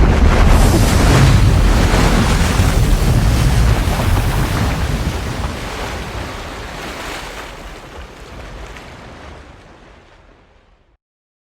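A natural-disaster sound effect: a loud rushing roar with a deep rumble. It starts suddenly, then fades out steadily over about ten seconds until it stops.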